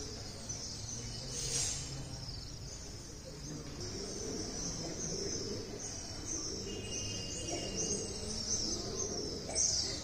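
Many small birds chirping continuously, over a low murmur of voices.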